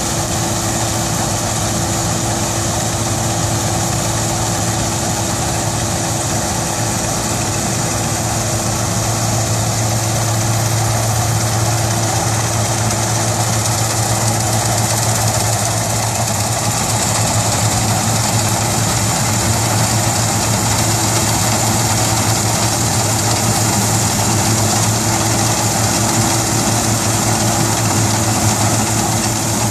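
Claas Mercator 60 combine harvester running at steady working speed while cutting wheat: a constant engine hum with the even whirring of the header and threshing machinery.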